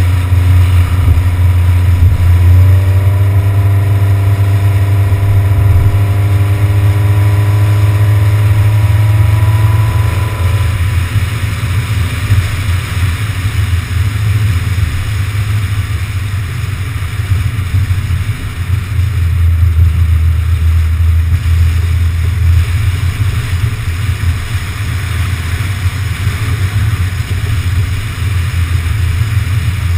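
A car driving on a highway, heard from a GoPro mounted on the outside of the car. The engine note rises steadily for several seconds as the car accelerates, then drops away about ten seconds in, leaving a steady low rumble of road and wind.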